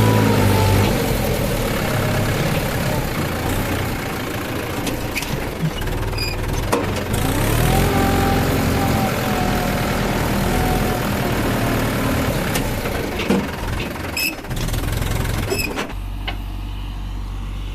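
Heavy diesel engine of earthmoving machinery running and revving up, its pitch rising about seven seconds in and then holding. A few sharp knocks come through it, and near the end it settles into a steadier low drone.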